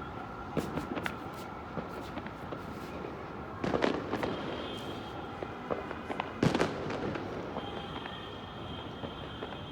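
Fireworks going off: scattered pops and cracks, with two louder clusters of bangs about four seconds and six and a half seconds in.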